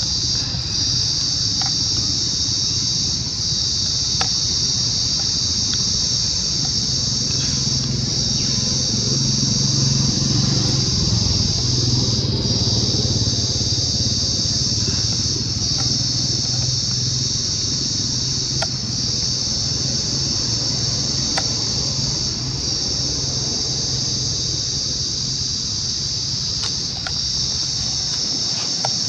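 Steady, high-pitched chirring of an outdoor insect chorus, continuous throughout. Under it, a low droning rumble swells and fades between about 8 and 18 seconds in, with a few faint clicks scattered through.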